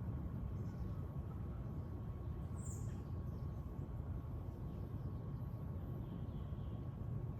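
Outdoor ambience: a steady low rumble, with a single short, high bird chirp a little under three seconds in.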